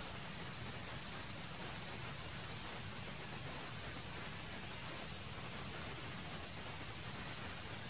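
Steady, high-pitched insect chorus: a continuous shrill buzz with no pauses, over a faint even background hiss.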